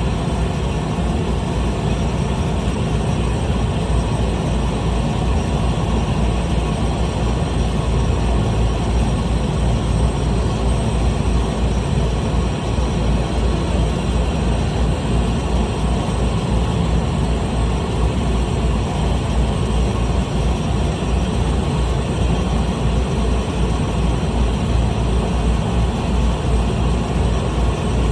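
Small propeller plane's engine running at a steady drone.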